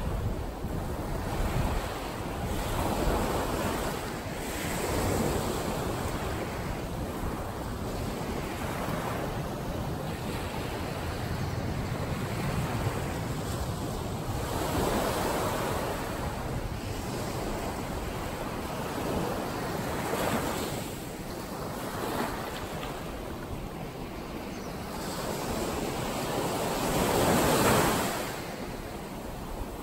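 Small ocean waves breaking and washing up a sandy beach, a continuous surf wash that swells every few seconds as each wave comes in, loudest with a wave near the end.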